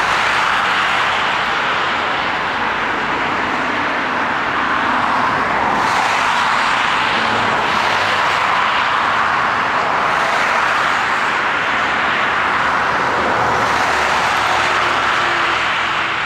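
Jet noise from an Airbus A380's four turbofan engines as the airliner lands: a loud, steady rush with no breaks.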